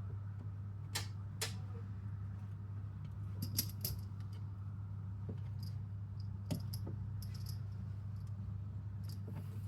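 Scattered light clicks and small metallic rattles as airsoft rifle internals are handled during an HPA engine install, over a steady low hum. The sharpest clicks come about a second in, in a quick cluster around four seconds, and once more past the middle.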